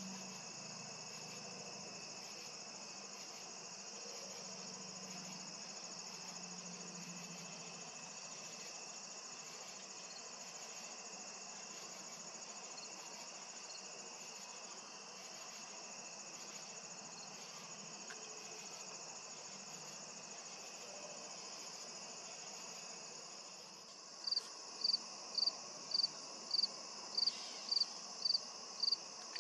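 Steady chorus of crickets and other insects: a continuous high trill with a faint, faster pulsing chirp above it. Near the end a louder short chirp joins in, repeating evenly about twice a second.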